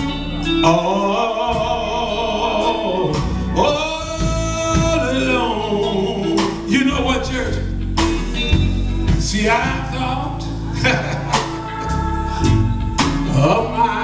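Live gospel music: a male lead singer sings held, bending notes into a microphone over a church band's drum kit and bass.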